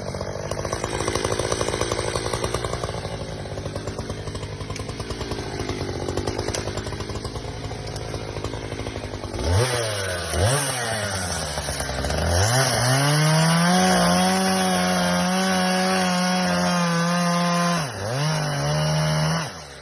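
Two-stroke chainsaw engine running with a rough, noisy sound, then about halfway through blipped twice and revved up to a steady high-pitched whine at full throttle. The pitch dips briefly near the end, rises again, then cuts off.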